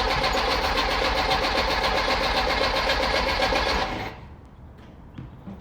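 Classic VW Beetle's air-cooled flat-four engine cranking on the starter with an even, rapid rhythm but not catching, after a new ignition condenser has been fitted. The cranking stops abruptly about four seconds in.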